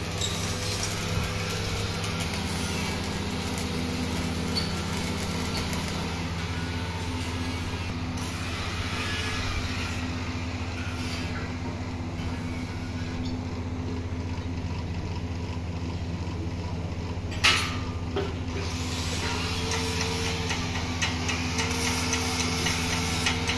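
Steady low machine hum with a crackling hiss over it from arc welding on steel, with one sharp bang about 17 seconds in and a few lighter metal knocks near the end.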